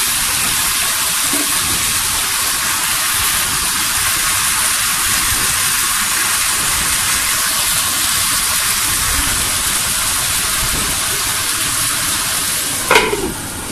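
Cauliflower florets and potato sticks sizzling steadily in spiced oil in a non-stick wok on medium heat. Near the end a short clink comes, and the sizzle drops as a glass lid goes on the pan.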